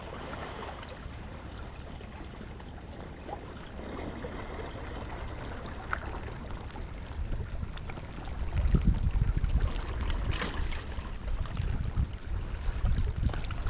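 Wind and surf on a stormy seashore, a steady rushing noise. From about eight seconds in, gusts of wind buffet the microphone with low rumbling.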